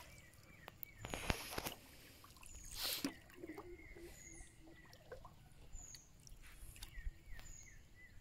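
Birds calling: short, high, falling chirps repeating about once a second, with a wavering whistled call joining in after a couple of seconds. Two brief rustling noises stand out, about a second in and about three seconds in.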